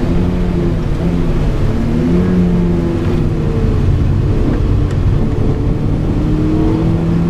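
Mazda MX-5 (NB) engine heard from inside the cabin, pulling hard on a wet track with its pitch rising and falling as the revs change.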